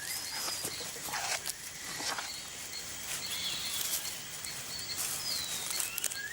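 Leaf-cutter ants snipping leaf pieces: irregular soft crackles and rustles over rainforest ambience, with several short high chirps scattered through.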